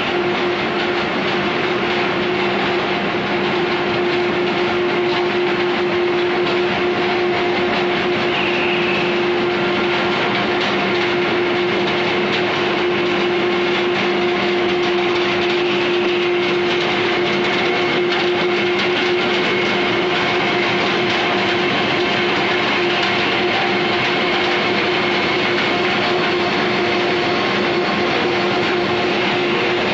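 Corrugated paperboard stacker and its belt conveyors running, a steady, unbroken mechanical din with a constant hum.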